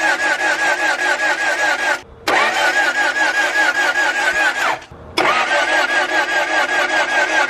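Honda Prelude's H22 four-cylinder engine cranking on the starter with an even rhythmic chug, about six strokes a second. The cranking stops briefly about two seconds in and again near five seconds, then starts again. The engine never catches: the car will not start despite fuel and starting fluid.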